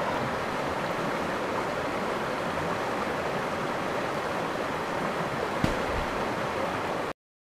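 Creek water rushing over rocks close to the microphone, a steady even wash, with a single knock about five and a half seconds in. The sound cuts off abruptly near the end.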